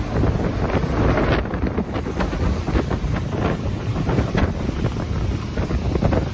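Strong wind gusting across the microphone in a loud, uneven low rumble that swells and dips.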